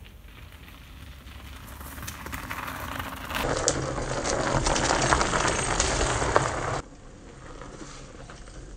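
Mountain bike rolling down a dirt track, its tyres crunching over grit and dry leaves. The sound gets louder as the bike comes near and cuts off abruptly about seven seconds in.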